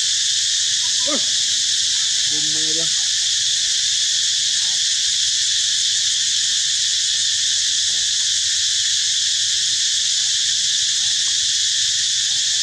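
Steady, loud, high-pitched insect chorus droning without a break.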